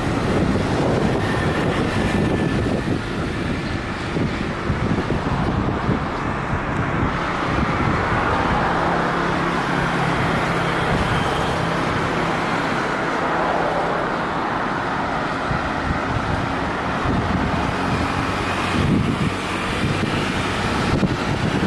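Jet airliner engines running, the roar swelling and then easing off over several seconds midway, with gusty wind buffeting the microphone throughout.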